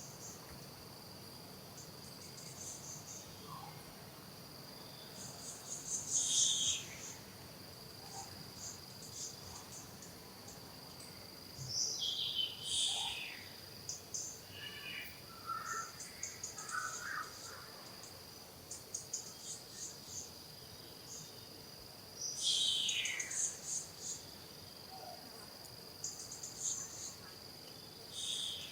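Steady high-pitched drone of insects such as crickets, with short high calls and chirps over it, three of them louder bursts that fall in pitch.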